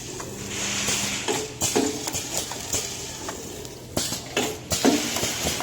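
Drinking-straw bundling machine running: irregular clicks and clattering over a low steady hum.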